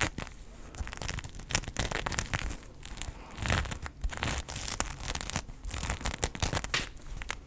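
Close-miked ASMR crackling: a dense, irregular run of crinkles and snaps from something handled right at the microphone, with a few louder pops along the way.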